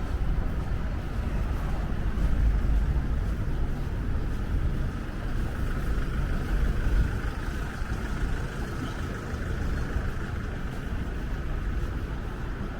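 Steady rumble and hiss of road traffic, cars passing without a break.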